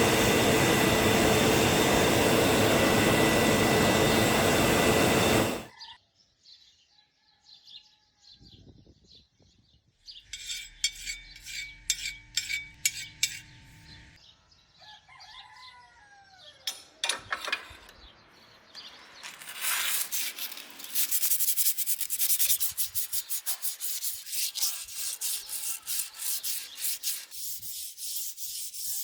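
A loud, steady machine noise cuts off about six seconds in. Then come repeated rubbing or scraping strokes of hand work on metal, turning to a long run of rapid strokes in the second half. Birds chirp now and then.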